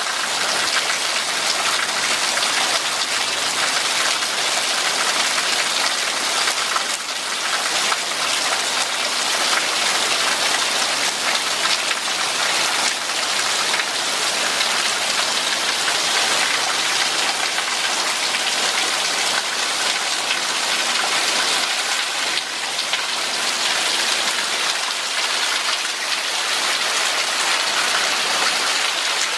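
Steady rain falling, an even hiss of drops striking the ground and puddles.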